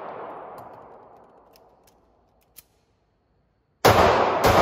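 Ruger MAX-9 9mm pistol firing in an indoor range: the echo of the previous shots dies away over the first two seconds, with a few faint clicks, then near the end firing resumes, two shots about half a second apart opening a fast string.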